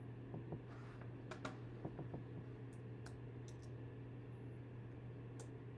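A few faint, scattered clicks from a computer's keyboard and mouse over a steady low hum.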